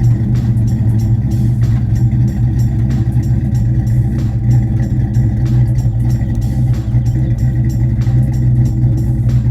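SN95 Ford Mustang's engine idling steadily after a cold start, heard through an exhaust whose mufflers are loose and due to be welded.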